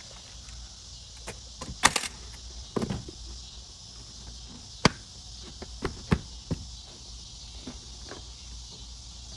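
Scattered sharp knocks and taps as garage door weatherstripping is handled and pressed into place against the door frame, the loudest about two seconds in and near the middle. A steady high chirring of insects runs underneath.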